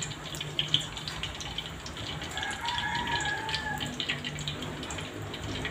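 Cooking oil heating in an aluminium wok on a portable gas burner, giving a steady hiss with scattered small crackles. Midway through, a rooster crows once, for about a second and a half.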